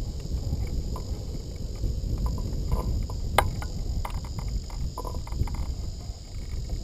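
Steady low rumble of wind on a hang glider's keel-mounted camera microphone, with a few faint knocks and one sharp click about three and a half seconds in.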